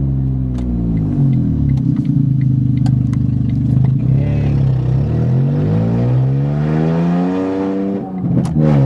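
Smart fortwo's three-cylinder engine running loud with no muffler on its broken exhaust, the revs dropping in the first second or so, then climbing from about five seconds in and falling again near the end.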